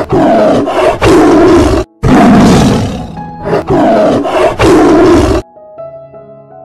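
A large animal roaring in loud, rough calls, broken by a hard cut near two seconds in and stopping abruptly a little past five seconds. Soft piano music follows.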